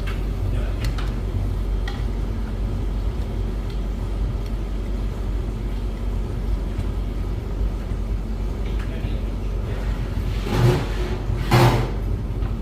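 Beko WS832425s washing machine starting its cycle: a steady low hum from the machine, with two short swishing rushes near the end as the drum turns the load over in slow tumbles.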